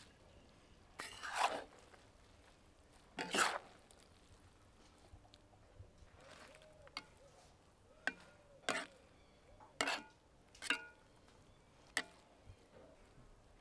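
Metal skimmer stirring pilaf rice in a black cast-iron cauldron: two long scraping strokes through the rice against the pot, then a run of short sharp clinks of metal on the pot in the second half.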